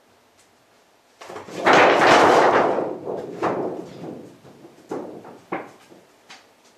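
Large sheet of stiff backdrop paper crackling and buckling under a cat's paws as it walks across it: a loud rustling surge about a second in that fades, then a few short sharp crinkles and pops.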